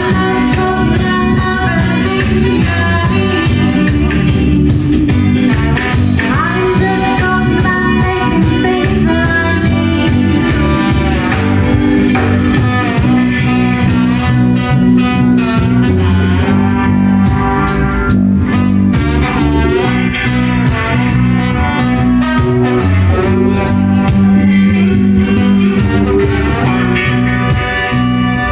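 Live rock band playing loud, with electric guitar over bass and drums.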